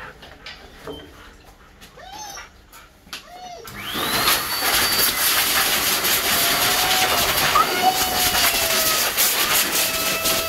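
An electric motor-driven blower, such as a pet dryer used after a dog bath, switches on about three and a half seconds in, its whine sweeping up and then holding high over a loud, steady rush of air.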